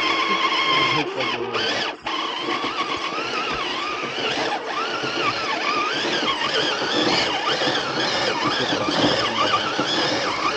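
Electric motor and gearbox of an RC rock crawler whining as the throttle is worked on a rock climb, the pitch rising and falling with each push, with a brief drop-out about two seconds in.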